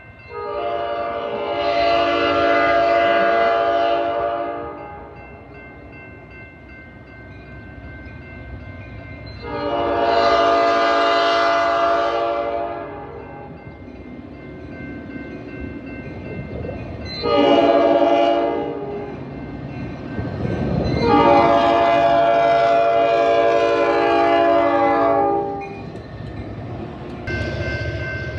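Metra locomotive's air horn sounding the grade-crossing signal: long, long, short, long, with a fifth blast starting near the end. A bell rings steadily throughout, and the train's rumble swells around the short blast.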